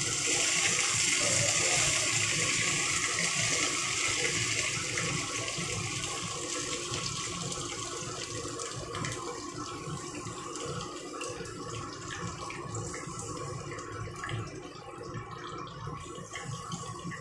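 Flour-battered chicken pieces sizzling in hot oil in a wok: a loud hiss as the first pieces go in, slowly dying down, with small crackles.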